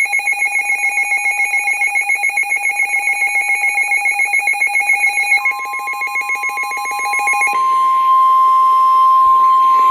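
Emergency alert tones for a severe thunderstorm warning. A fast-pulsing electronic alarm beep is joined about five seconds in by a steady tone near 1 kHz, which carries on alone from about two seconds later. The steady tone is the weather-radio warning alarm tone that comes before the National Weather Service warning message.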